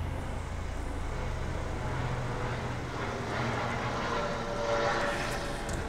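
Helicopter flying overhead: a steady low rumble with engine noise above it, growing louder about four to five seconds in.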